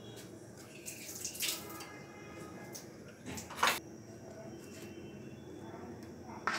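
Handling sounds of a steel spoon scraping and tapping against plastic bowls while soft food is scooped and moved. A few short sharp clicks and clatters stand out, the loudest about three and a half seconds in, over a steady faint hiss.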